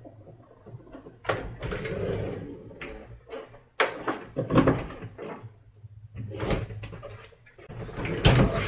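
White bifold closet doors being pulled and pushed open, panels clattering and knocking in a series of separate bursts, the loudest near the end.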